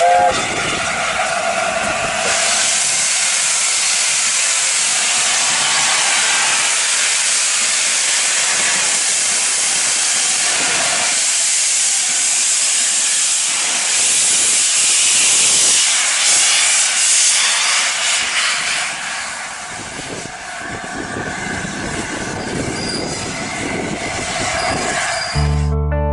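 Steam train on the move: a loud, steady hissing rush of steam and wheels on rail, easing somewhat after about eighteen seconds. Guitar music comes in right at the end.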